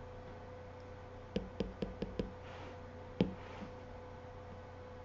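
Apple Pencil tip tapping on an iPad's glass screen to draw dots: five quick taps about a second and a half in, then one sharper tap about a second later.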